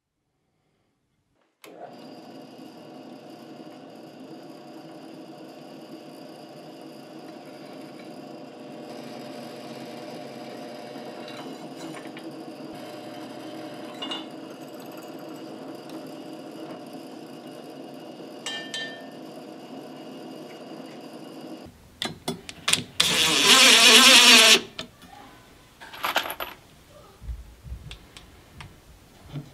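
Drill press motor running steadily for about twenty seconds while the bit cuts through a square steel bar. Afterwards come a few clatters and a loud burst of noise lasting a couple of seconds, then scattered knocks.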